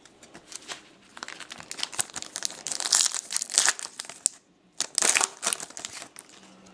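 Plastic wrapper of a 2012 Topps Finest Football trading card pack being torn open and crinkled by hand: irregular crackling for about three seconds, a short pause, then another brief spell about five seconds in.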